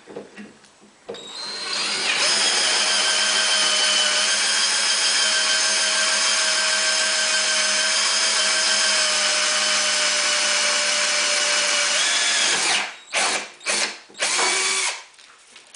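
Electric drill running steadily as it drills out the primer pocket of a brass .223 case stuck in a full-length sizing die. It starts about a second in, runs for about eleven seconds, then gives a few short bursts near the end.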